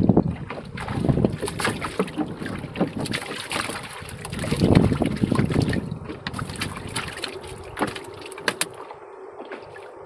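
Wind buffeting the microphone over water splashing around a small wooden boat, with scattered knocks and taps on the boat's boards; the wind eases near the end.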